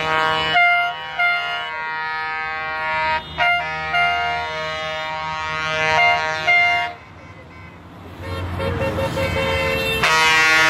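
Vehicle horns honking: loud, long blasts, several at once, some stepping between pitches. About seven seconds in they fall away to a low engine rumble, and loud horns return near the end.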